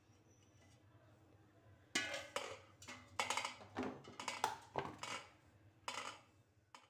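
Wet peeled raw plantains and a plastic plate knocking on a stone kitchen counter as the plantains are set down on the plate: a run of about eight short, ringing knocks and clatters starting about two seconds in.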